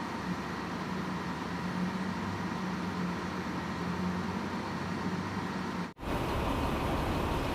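Steady low hum and rumble of idling vehicle engines, with a constant low drone. About six seconds in the sound drops out for an instant, then carries on as a deeper, louder rumble.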